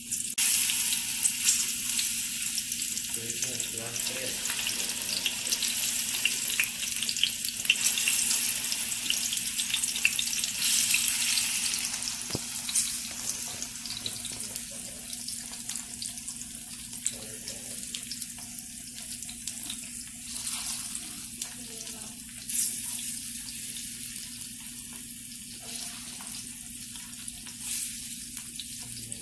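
Slices of ripe banana frying in a pan: a steady sizzle with many small crackling pops, louder in the first half and softer after about twelve seconds.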